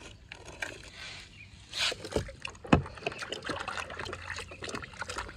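A toy vehicle being dug out of damp sand by hand with soft scraping, then swished and rubbed in a tub of water with sloshing and small splashes. A sharp knock about halfway through.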